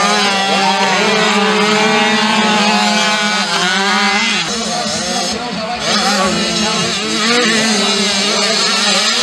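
A pack of 65cc two-stroke motocross bikes racing off the start, several engines revving at once, their pitches overlapping and sliding up and down with each gear change and throttle.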